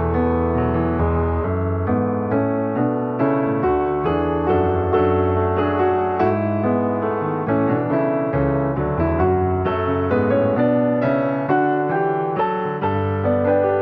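Background piano music: a flowing run of notes over held bass notes.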